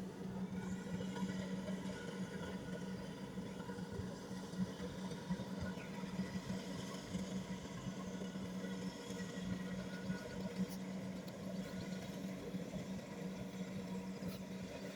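Kubota rice combine harvester running steadily, its engine holding an even, unchanging pitch.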